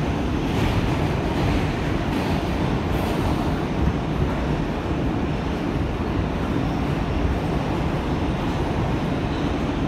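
Inside an R160 subway car running through a tunnel: the train's steady running noise of wheels on rail, even and unbroken.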